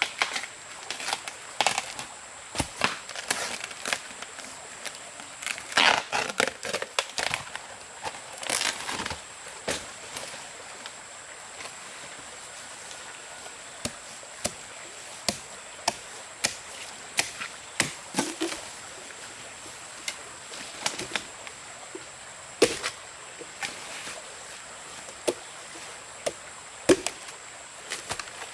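A blade chopping into bamboo shoots: irregular sharp knocks and cracks, some in quick clusters, over a steady hiss.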